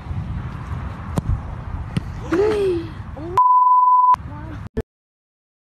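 A censor bleep, a steady single-pitched tone of under a second, masks a word in a voice's outburst about three and a half seconds in. Outdoor background noise and a short shout come before it, and the sound cuts off to silence soon after.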